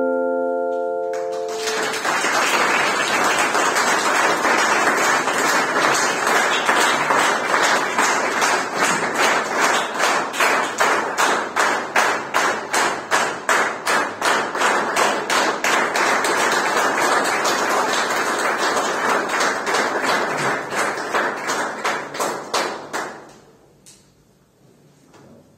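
The last chord of handheld tuned metal chime tubes rings out and stops about a second and a half in. Then an audience applauds, falling into rhythmic clapping in unison at about two to three claps a second, which stops shortly before the end.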